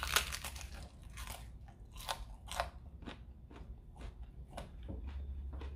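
A bite into a slice of homemade pizza with a thin fried crust: a loud crisp crunch as the crust breaks, then chewing with crunches about twice a second that grow fainter.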